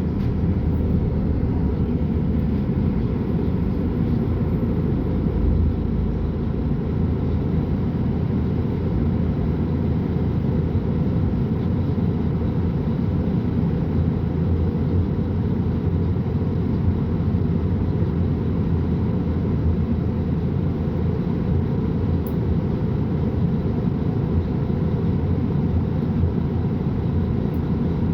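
Diesel engine of a Mercedes-Benz O500UA articulated bus running steadily, a loud, even low rumble with no clear revving.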